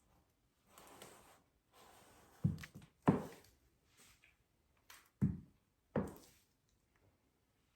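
High-heeled shoes walking on a hard floor: four sharp heel strikes in two pairs, each with a short ring-off, after a soft rustle of movement.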